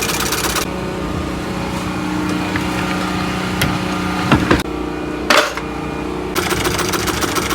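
Sewing machine stitching at speed, a fast even clatter of the needle, which stops about half a second in. A steady hum and a few sharp knocks follow, and the stitching starts up again near the end.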